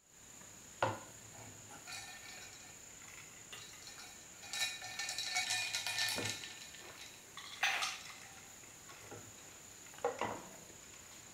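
Glass tumblers of iced drink being handled on a tray. A glass knocks down about a second in. Ice cubes clink and rattle in a glass as it is stirred with a straw for a couple of seconds in the middle, and two more glass knocks come later as the glasses are moved and lifted.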